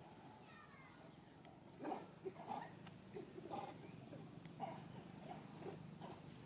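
Faint, steady, high-pitched insect drone, with about seven short calls from macaques scattered from about two seconds in.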